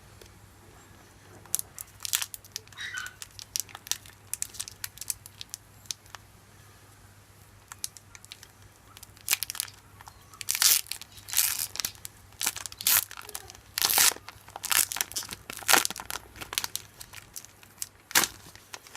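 Foil Pokémon TCG booster pack wrapper being crinkled and torn open: sharp, irregular crackles, sparse at first and much thicker from about halfway through.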